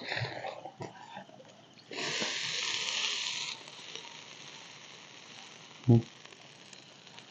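Water poured from a cup onto campfire embers, hissing loudly for about a second and a half, then a fainter hiss as it dies away.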